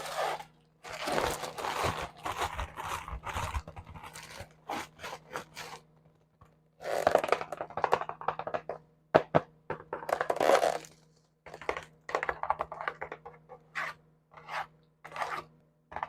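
Fingernails tapping and scratching on a hard object, as ASMR triggers. Quick runs of sharp taps alternate with longer scraping passages, with short pauses between runs.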